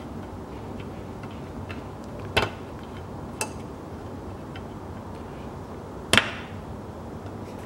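Small sharp metallic clicks of the fuel filler door's hinge spring being hooked into place and snapping onto its rib: three clicks, about two and a half seconds in, a second later, and a louder one about six seconds in, over a steady low background noise.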